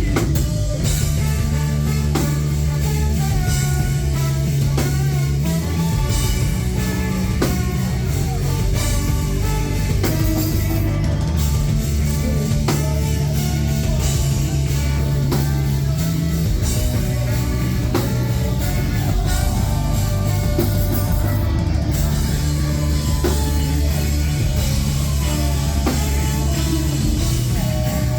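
Rock band playing live: drum kit and electric guitar over a heavy bass line that shifts note a few times, with no clear vocals.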